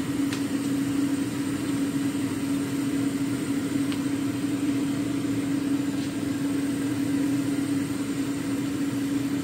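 Steady machine hum with one strong, unchanging low drone, like an appliance motor running, with a few faint ticks.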